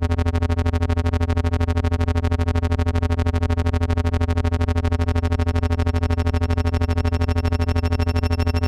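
Low electronic synthesizer drone rich in overtones, pulsing rapidly and evenly at a steady level; a few thin high tones join about halfway through.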